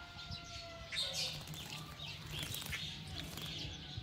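Small birds chirping in short, scattered calls over a low steady hum. The held tail of a rooster's crow stops about a second in.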